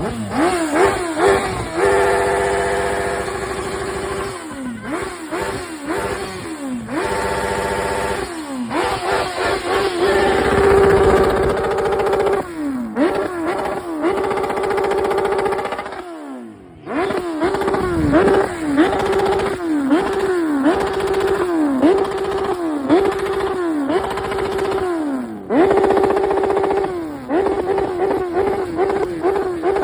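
Suzuki GSX-R sportbike engine being revved over and over: quick blips that climb and fall back, with stretches held steady at high revs, and a brief drop in revs about two-thirds of the way through.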